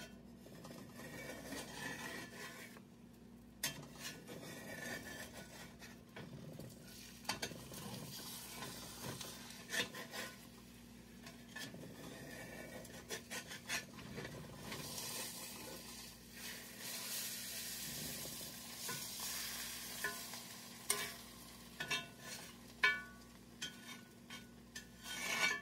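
Metal spatula scraping and tapping against a cast-iron skillet while omelette eggs sizzle in the pan. Sharp clicks come scattered throughout, the loudest near the end.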